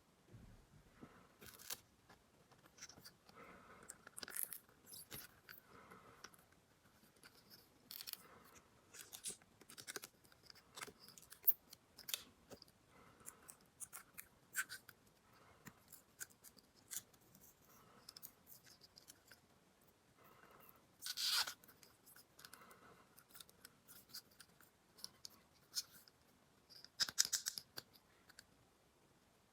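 Small plastic toy pieces being handled close up: scattered light clicks, taps and scrapes, with two short louder scraping bursts, one about twenty-one seconds in and one near the end.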